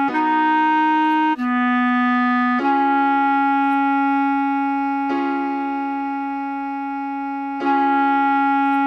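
Clarinet playing slow, sustained melody notes: a higher note, a lower one about a second later, then one long note at a single pitch that is re-attacked twice.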